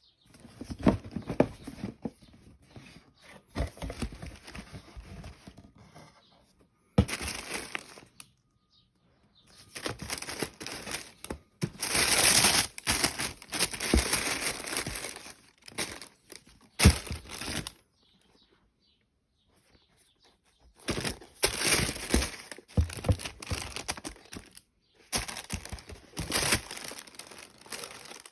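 Football-boot packaging being handled: paper crinkling and tearing in irregular bursts with short pauses, and a sharp knock about two-thirds of the way through.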